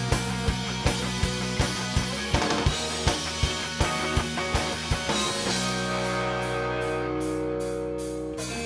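Live pop/rock band playing an instrumental passage: a drum kit keeps a steady kick-and-snare beat under guitar and bass. About five seconds in, the drums drop out to held chords with only light cymbal taps keeping time, and the full band crashes back in at the end.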